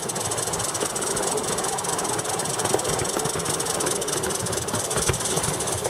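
Live steam model locomotive giving off a steady hiss of steam, laced with rapid fine ticking.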